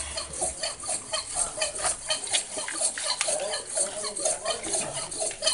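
Saw cutting through an elephant's ivory tusk in quick, even back-and-forth strokes, metal scraping on ivory as water is poured on the cut.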